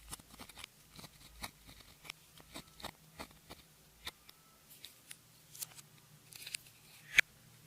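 Clear slime being squeezed and worked by hand: irregular sticky clicks and small pops, with one sharper, louder snap about seven seconds in.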